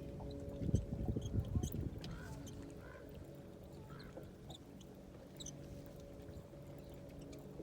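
A duck quacking a few short times, over a steady low hum, with a few low thumps in the first two seconds.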